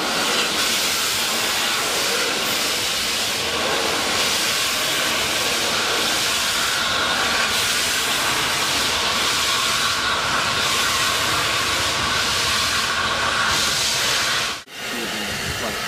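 Flying Scotsman, an LNER A3 steam locomotive, and its train passing over a bridge, with a steady hiss of steam as the tender and coaches roll by. The sound breaks off for a moment near the end.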